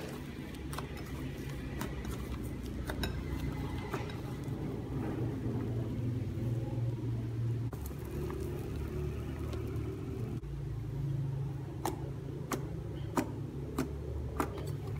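Shampoo fluffy slime being kneaded and squeezed by hand, with soft squishing and a run of sharp little pops near the end as trapped air bursts under the fingers, over a steady low hum.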